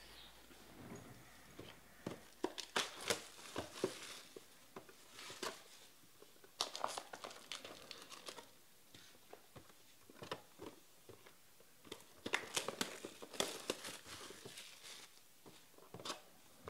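Plastic wrapping and sealed trading-card packs crinkling and rustling as they are handled, coming in several bursts of a second or two with short quiet gaps between.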